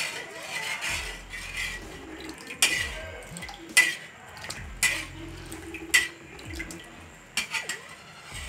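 Wooden spatula stirring salted water in a steel kadhai, knocking sharply against the pan about six times, roughly once a second.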